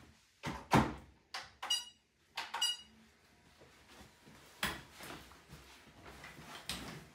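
Footsteps on a wooden floor and an office chair being handled and sat in: a series of separate knocks and thuds, with two short, high squeaks about two seconds in and a louder thud a little before the five-second mark.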